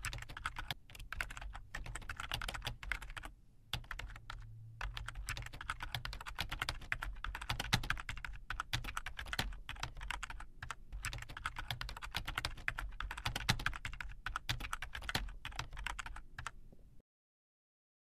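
Keyboard typing: rapid, irregular keystroke clicks with short pauses over a low hum, stopping about a second before the end.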